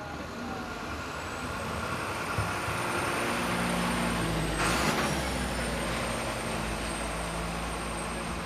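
A heavy vehicle's engine running steadily, with a thin high whine over it and a short hiss about five seconds in.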